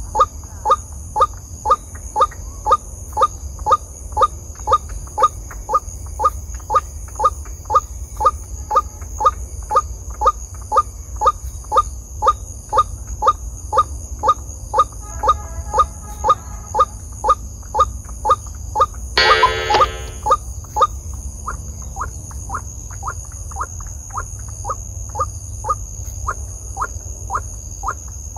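White-breasted waterhen's call, a short note repeated evenly a little under twice a second without a break, the looped lure call used to draw waterhens to a trap. About 19 seconds in a harsher, louder call cuts across it for about a second, over a steady high insect-like whine.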